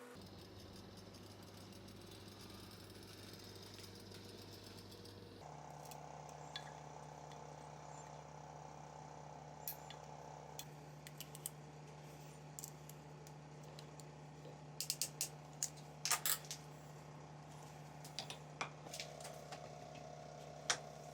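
Scattered light clicks and taps of small metal parts and hand tools being handled, over a steady hum.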